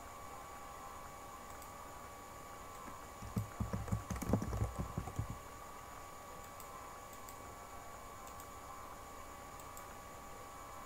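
Typing on a computer keyboard: a quick run of keystrokes lasting about two seconds, starting about three seconds in, over a faint steady hum and hiss.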